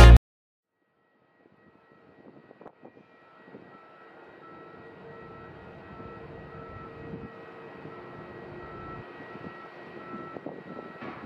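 Airbus A330-200 airliner on final approach, its jet engines a faint distant rumble that fades in after about two seconds and slowly grows louder.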